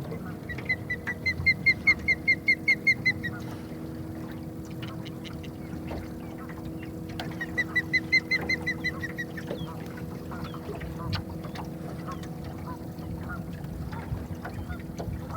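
A bird gives two quick runs of repeated pitched calls, about five a second: the first lasts about three seconds and the second about two. A steady low hum runs underneath.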